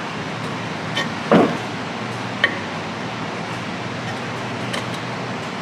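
A wrench clinking on the metal of a car's rear drum brake backing plate while the wheel cylinder's brake line fitting and bolts are worked loose from behind: a few scattered sharp clinks, the loudest about a second and a half in, over a steady background hum.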